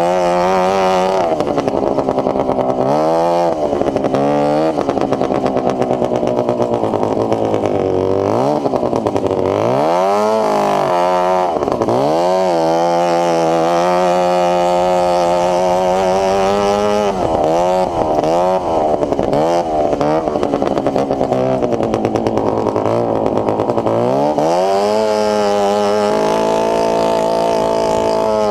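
Go-kart's 440cc two-stroke Bombardier snowmobile engine running loud, its pitch repeatedly revving up and dropping back, with a few steadier stretches in between.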